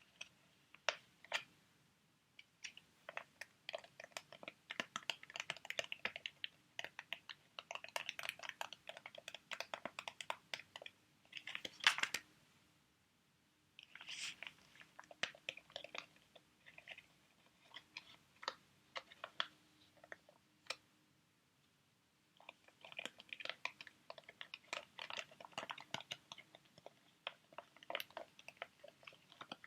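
Sheet-mask packets crinkled and handled close to the microphone: dense runs of small crackles and clicks, with two short pauses.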